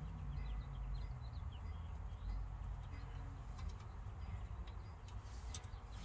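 Birds chirping in the background: a run of short, high, falling chirps over a low steady rumble, with a few faint clicks in the second half.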